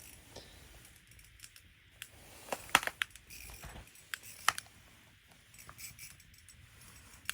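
Scattered light clicks and ticks of fishing reel and tackle being handled while a hooked fish is played through the ice, irregular rather than a steady drag buzz, the sharpest about three seconds and four and a half seconds in.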